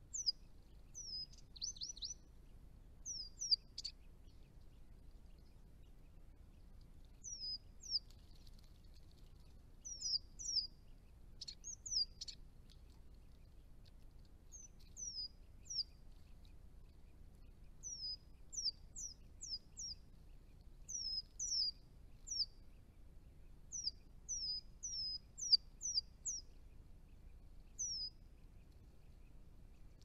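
Chestnut-rumped thornbills calling: thin, high notes, each sliding quickly down in pitch, given singly and in quick runs of two to four throughout.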